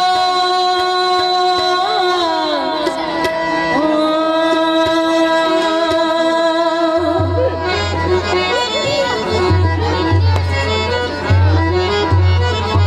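Live Sufi devotional song: a woman sings over a harmonium's held drone, and dholak drum beats come in about seven seconds in.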